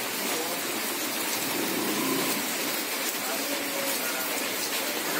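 Heavy rain falling onto standing floodwater on a road, a steady hiss.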